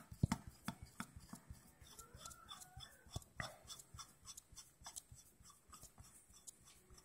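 Small irregular clicks and light scraping of a screwdriver turning an adjusting screw out of a Mikuni VM22 carburettor body, with handling noise from the carburettor in the hand.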